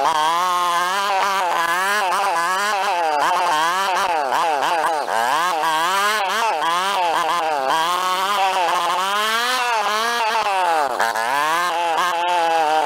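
Honda 50 mini bike's small single-cylinder four-stroke engine running under way, its pitch rising and falling over and over as the throttle is opened and closed.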